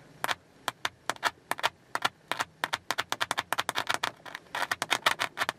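Oval car door speaker crackling with irregular clicks and pops ('static') as a battery is held to its terminal wires, each make and break of contact jolting the cone. The clicks come thicker near the end. This is the battery test used to find which car wires lead to which speaker.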